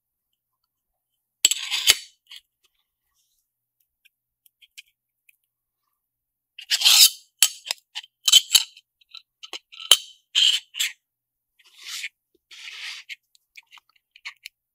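Metal SSD enclosure parts being handled and fitted together: a short burst of scraping about two seconds in, then a run of short scrapes and sharp clicks through the second half as the top shell is pressed onto the base.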